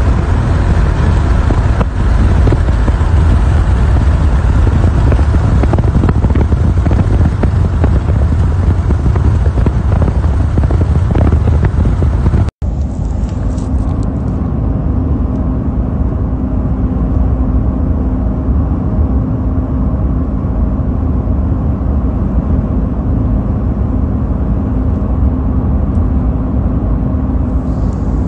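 Loud, steady low rumble of wind and road noise around a moving vehicle. It cuts off abruptly about twelve seconds in, then gives way to a slightly quieter, steadier vehicle drone with a low hum.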